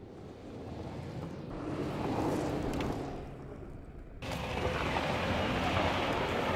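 Lada 4x4 engine running as the car drives over rough ground, with a noisy rush that swells and fades, then jumps abruptly louder about four seconds in.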